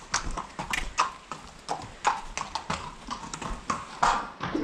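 A horse's hooves clip-clopping at a walk on concrete as she is led into a stable, with irregular steps about three a second.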